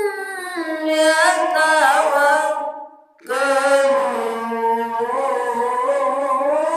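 A single voice chanting a melodic recitation, holding long ornamented notes that bend slowly up and down, with a short breath pause about three seconds in.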